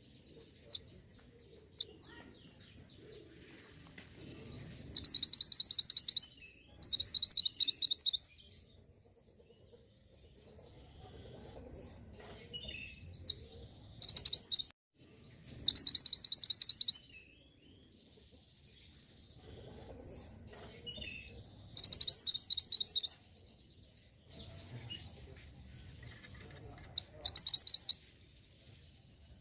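Songbird lure recording for a mantenan gunung: six loud bursts of rapid, high chirping trills, each about a second long, spaced a few seconds apart, with faint softer chirps between them.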